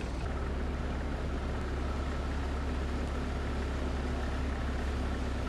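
Heavy vehicle's engine running steadily under load, a constant low drone with no letup.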